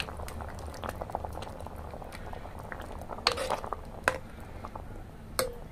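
Lauki, pea and potato curry boiling in an iron kadhai, bubbling and popping steadily, while a steel ladle stirs it. The ladle knocks sharply against the pan three times in the second half.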